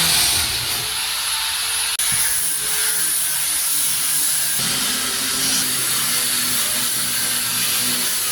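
Power sander running steadily while smoothing a surface, a continuous high whining hiss with a brief break about two seconds in.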